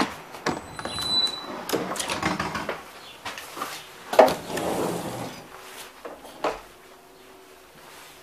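Footsteps and knocks as someone walks along a parked InterRegio train and steps up through its door into the coach, the loudest knock about four seconds in. After that comes a quieter, steady low hum inside the coach.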